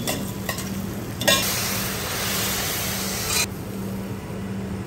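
Beaten egg sizzling on a hot flat iron griddle. A louder hiss starts with a click about a second in and cuts off about two seconds later, over a steady low hum.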